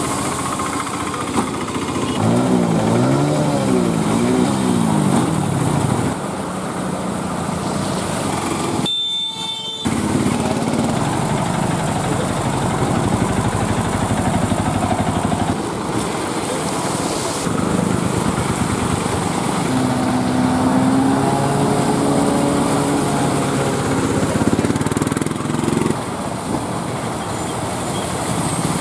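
Small engines of three-wheeled auto-rickshaws running as they drive through flood water, with the wheels splashing and churning the water. A few seconds in, the engine pitch rises and falls repeatedly. About a third of the way in there is a short break.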